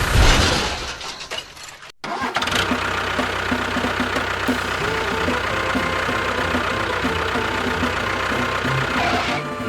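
A loud clattering burst that dies away over about two seconds, then, after a brief break, a steady engine-like mechanical running sound.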